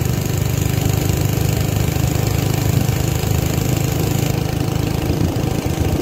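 Small engine of an old minibike running steadily while the bike is ridden slowly.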